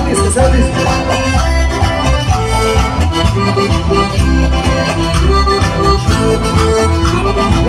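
Live Andean folk band playing an instrumental passage: a reedy held-note melody over a steady pulsing bass beat, with no singing.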